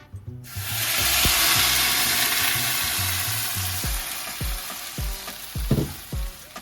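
Food dropped into hot oil in a pan, sizzling: a loud hiss that starts suddenly about half a second in and slowly dies down. Background music with a steady beat plays under it.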